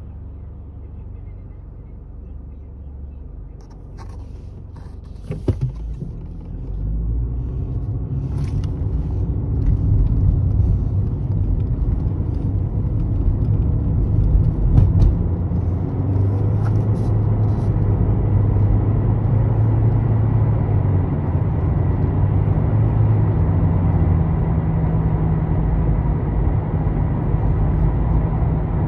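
A car driving, with a few knocks about four to six seconds in. Then the engine and road rumble rise as the car picks up speed and settle into a steady drone at cruising speed.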